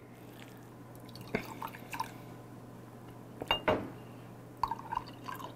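A few quiet clicks of chopsticks and eating, then beer poured from a glass bottle into a glass, liquid trickling and dripping in the second half.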